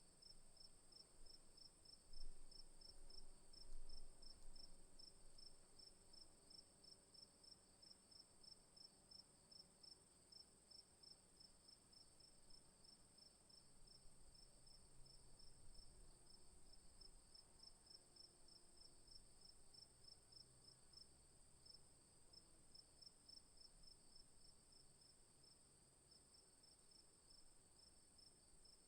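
Crickets chirping faintly: regular chirps, about two to three a second, over a steady high trill. Two brief low rumbles stand out a couple of seconds in.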